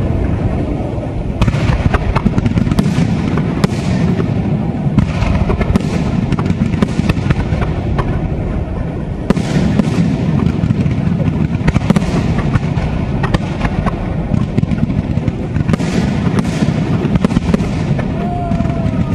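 Aerial fireworks display in full barrage: a continuous rumble of shell bursts packed with rapid bangs and crackling, coming in denser clusters of sharp reports every few seconds.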